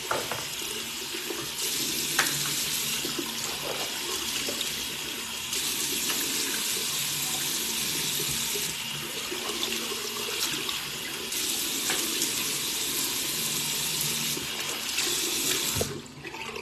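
Water running from a bathroom sink tap into the basin, the stream changing now and then as it is used for rinsing. The tap is shut off suddenly near the end.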